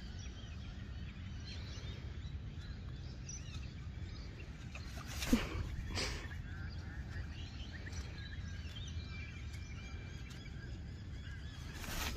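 Macaw squawking harshly, twice close together about five and six seconds in and once more near the end, over a low rumble of wind on the microphone and faint chirps of small birds.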